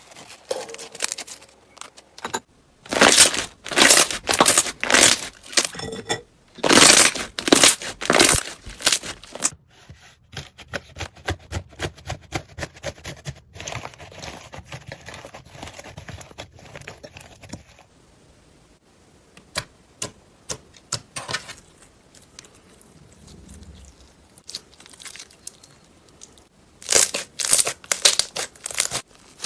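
Slime being squeezed and stretched by hand, giving crackly, crinkling sounds in repeated bursts, loudest in two runs of squeezes near the start and again near the end, with softer crackling in between.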